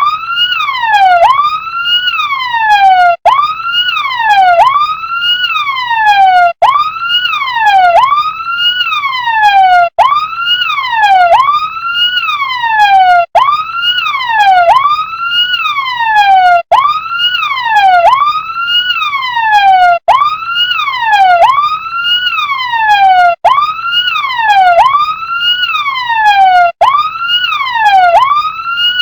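Electronic siren of an RC fire truck, rising quickly and falling more slowly about once a second. The cycle keeps repeating, with a brief break about every three seconds.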